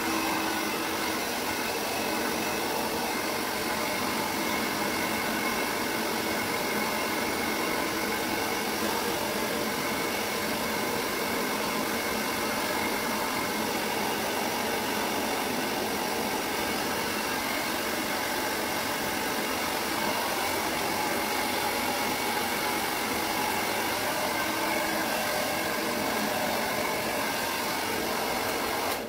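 Handheld hair dryer blowing steadily on a wet cat's fur: a constant rushing hiss with a faint steady whine from its motor. It cuts off suddenly at the end.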